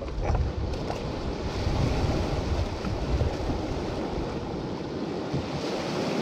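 Small waves washing in over a shore of rounded boulders, with wind buffeting the microphone, heavier in the first few seconds.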